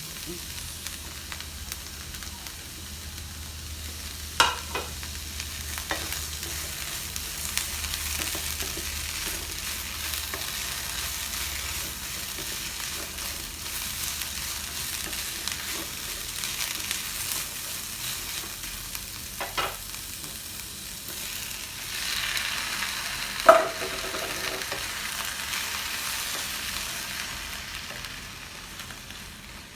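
Chopped vegetables sizzling in hot vegetable oil in a frying pan as they are stirred, a steady frying hiss. A few sharp knocks sound against the pan during the stirring, the loudest about two-thirds of the way through.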